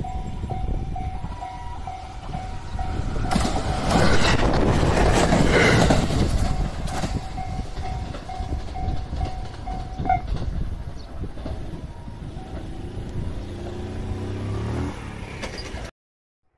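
Japanese level-crossing alarm bell ringing in a steady repeating tone while an electric train passes through, the rolling noise of the train loudest a few seconds in; the bell stops about ten seconds in. Near the end a train's motors give a low whine that rises in pitch as it pulls away.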